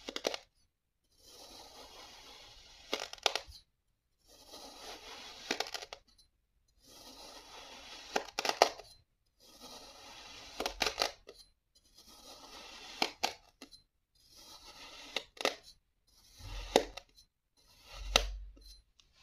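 Knife slicing through kinetic sand, one slice at a time. Each cut is a soft grainy hiss that ends in a few sharp clicks, and it repeats about every two to three seconds, about eight times, with brief dead silences between the cuts.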